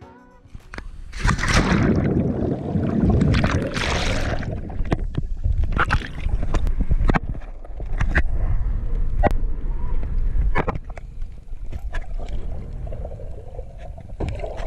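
Water splashing and churning around a swimmer, then muffled underwater gurgling and bubbling with scattered sharp clicks, picked up by an action camera held underwater.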